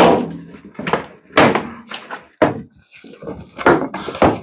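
Repeated sharp knocks and thuds, about eight in four seconds, as a Jeep Wrangler JK's stock fender flare is worked loose and pulled off the body.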